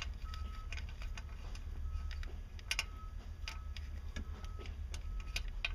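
Ratchet wrench clicking in short, uneven runs as a knock sensor is unscrewed from the engine block's drain plug, over a steady low hum.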